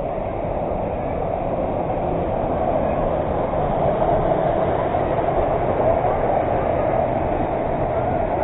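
Waterfall rushing: a steady, loud roar of falling water that swells a little toward the middle.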